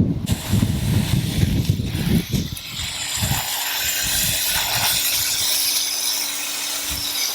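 Water spraying from a garden hose onto container soil, a steady hiss that starts about two and a half seconds in, after a couple of seconds of low rumbling and knocks.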